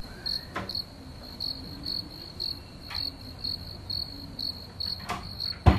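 A cricket chirping steadily, about four short chirps a second, used as the stock sound effect for an awkward silence. A single sharp thump comes near the end.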